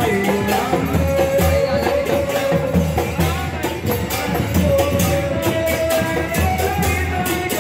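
Devotional kirtan: singing over hand cymbals (kartals) struck in a steady beat, about three to four strokes a second, with drums.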